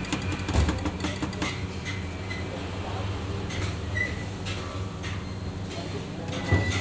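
Street-food cooking sounds: scattered knocks and clinks of metal cooking utensils over a steady low hum.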